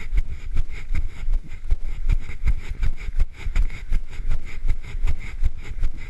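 Running footfalls jolting a handheld camera, about three thuds a second, over a steady low rumble of wind and handling noise on the microphone.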